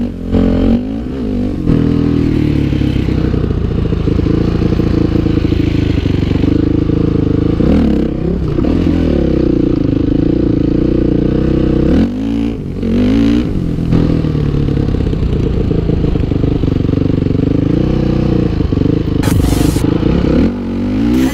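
Dirt bike engine running hard under throttle, its pitch rising and falling as the rider opens and closes the throttle. It drops off and climbs again several times.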